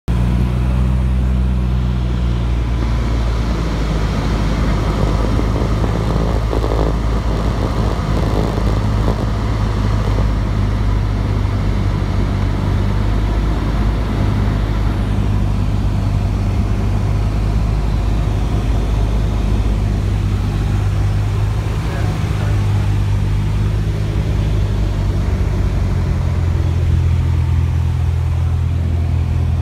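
Cessna 172's piston engine and propeller droning steadily, heard inside the cabin, with a few small shifts in the pitch of the drone.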